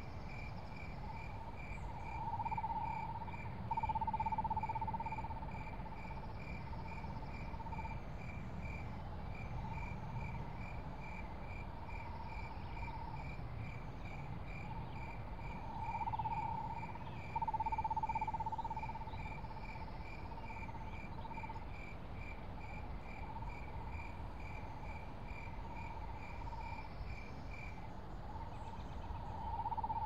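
Night cricket chorus: a cricket chirping steadily about three times a second, stopping shortly before the end, over a lower insect or frog trill that swells louder several times, with a low steady rumble underneath.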